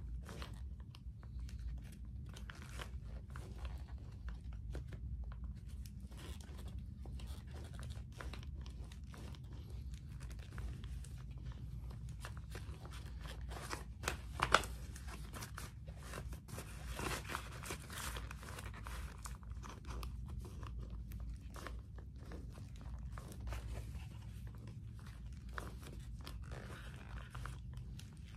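Knox Handroid leather motorcycle gloves creaking and clicking as gloved hands flex, clench and rub together, the leather and the hard finger and knuckle armour crunching with each movement, with one sharper click about halfway. A steady low hum runs underneath.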